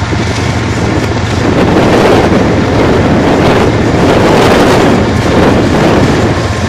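CN diesel freight locomotive passing close by under power: its engine drones steadily, with the rumble of wheels on rail growing louder from about a second and a half in. Wind buffets the microphone.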